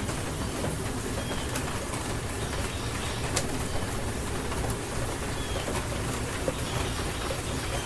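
Steady rain, with now and then a sharp drop landing close by. Birds give short high calls a few times over it.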